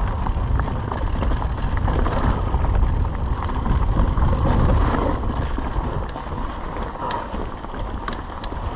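Mountain bike rolling fast down a dry, rocky dirt trail: tyres running over loose dirt and stones with the bike rattling, over a steady rumble of wind on the camera's microphone. A couple of sharp clatters come near the end.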